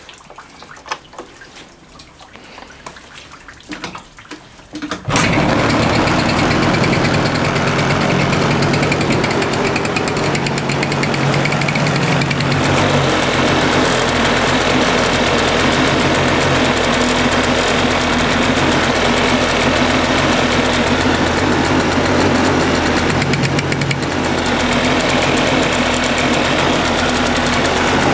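Suzuki Address 110 scooter engine starting about five seconds in, after a few light clicks, and then running steadily with small changes in speed. Through the running comes a foreign ticking that the owner suspects is the piston or wrist pin knocking.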